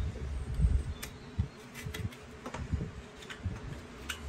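Hoof knife paring a donkey's hoof: a few short, quiet scrapes and clicks over a faint steady buzz.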